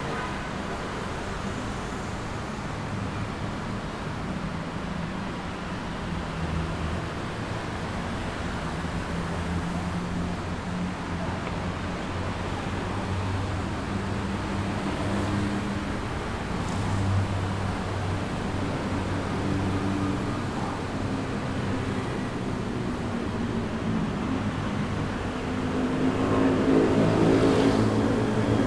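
Busy city street traffic: cars and motorbikes running past with a steady engine hum, and a nearer, louder vehicle passing near the end.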